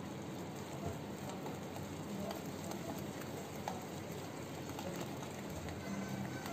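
Wire whisk stirring gram flour and water into a thick paste in a glass bowl: a steady, fairly quiet wet scraping, with scattered light clicks of the whisk against the glass.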